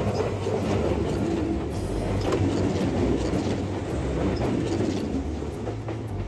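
Kintetsu Minami-Osaka Line electric train running past the level crossing: a steady rumble of wheels on rails with a few clicks, easing off slightly toward the end.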